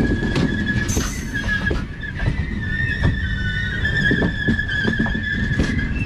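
Passenger train coaches rolling past at close range: low rumble with sharp clicks of the wheels over the rail joints, and a steady high-pitched squeal through it.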